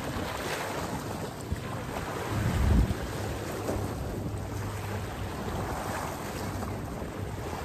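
Wind buffeting the microphone over small waves lapping and splashing on a rocky shore, with a stronger low gust about two and a half seconds in.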